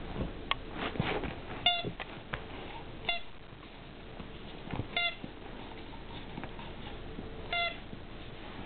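A pet animal giving four short, high squeaks, each brief and level in pitch, spaced a second or more apart, with some light tapping and clicking in the first two seconds.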